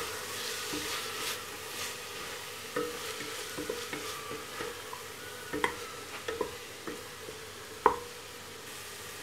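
Wooden spatula stirring and scraping onions and tomatoes frying in oil in a metal pressure cooker pot, over a steady sizzle, with scattered knocks of the spatula against the pot. The loudest knock is near the end.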